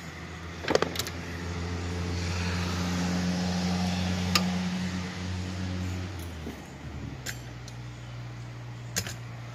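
A motor vehicle engine running with a steady low hum that swells through the middle and changes pitch about six seconds in, with a few sharp metallic clicks over it.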